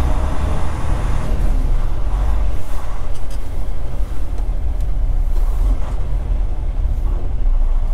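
Semi truck's diesel engine running steadily at low speed, a deep continuous rumble heard from inside the cab.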